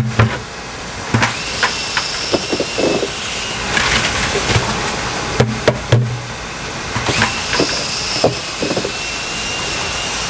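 Cordless drill spinning a long mixing rod in a plastic tank of fertilizer solution, its motor whining in two spells of a couple of seconds each, with knocks from the plastic bucket and tank.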